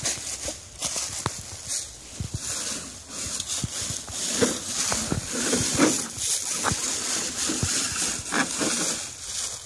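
Footsteps crunching and rustling through dry leaves and brush, irregular crunches throughout, thickest in the second half.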